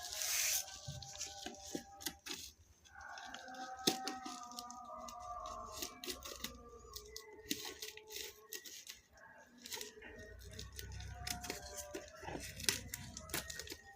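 Packaging of a box of pop rivets being torn open and handled: scattered rips, rustles and sharp clicks. Faint background music is heard under it.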